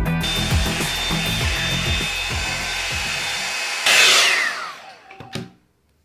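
Drybar hot-air dryer brush running with a steady rush of air and a thin high whine, over background music. About four seconds in it surges louder, then is switched off and its whine falls in pitch as the motor spins down.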